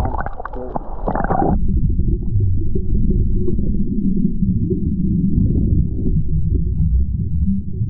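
Water splashing at the surface, then about a second and a half in the sound cuts abruptly to a dense, muffled low rumble of water moving around an action camera held underwater.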